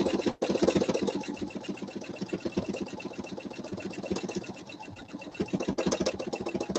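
Pfaff computerised sewing machine stitching fast and steadily in free-motion quilting through a quilt, a rapid even run of needle strokes. It drops out for an instant about half a second in and is quieter through the middle, then louder again near the end.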